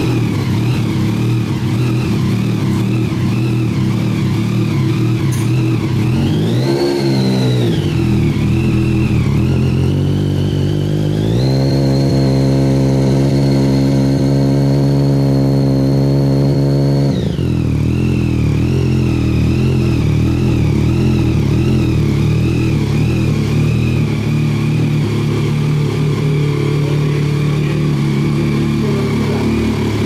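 Yamaha Tracer 900's 847 cc three-cylinder engine idling through a Termignoni silencer, blipped once about seven seconds in, then held at a steady higher rpm for about five seconds before dropping back to idle.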